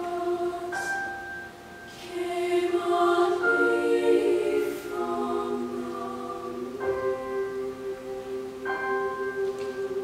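Women's choir singing sustained chords in several parts, moving to a new chord every second or two, with a brief lull about a second and a half in, over piano accompaniment.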